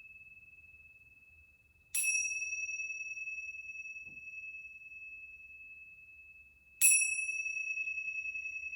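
A small metal chime struck twice, about five seconds apart. Each strike rings on with a clear, high, slightly wavering tone that fades slowly, and the ring of an earlier strike is dying away at the start. It sounds the end of the savasana relaxation.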